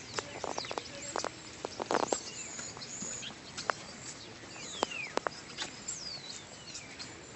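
Birds chirping with several quick falling high-pitched calls, over a small child's footsteps crunching on dry leaves and twigs, loudest about two seconds in.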